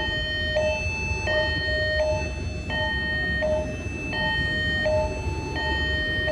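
Railway level-crossing warning alarm sounding an electronic two-tone signal, a high and a low tone alternating about every two-thirds of a second, over a low rumble of traffic. It is warning of an approaching rail vehicle.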